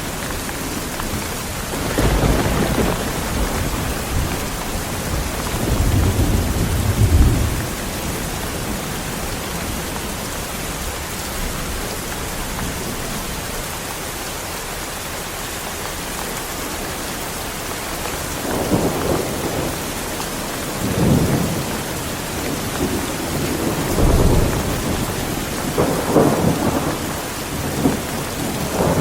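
Steady heavy rain with rolls of thunder: low rumbles swell about two seconds in and again around six to seven seconds, then after a calmer stretch of rain alone the thunder comes back in several rolling peaks over the last ten seconds.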